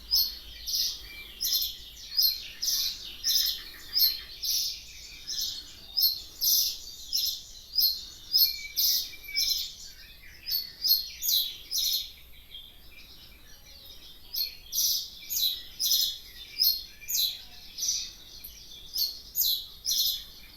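A small bird chirping: short, high chirps repeated about twice a second, with a pause of about two seconds midway.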